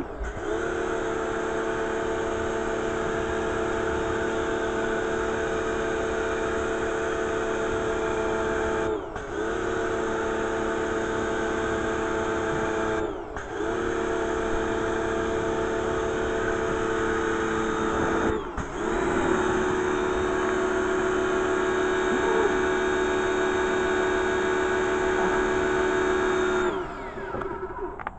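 Pressure washer's motor and pump running with a steady hum under the hiss of the spray. The hum dips and picks up again three times as the trigger is briefly let go, then winds down near the end.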